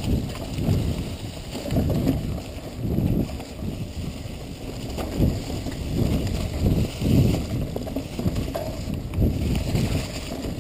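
Mountain bike descending a dry, leaf-covered dirt trail at speed: a loud, uneven rumble of tyres and bike over the rough ground, mixed with wind buffeting the camera's microphone, surging and easing every second or so.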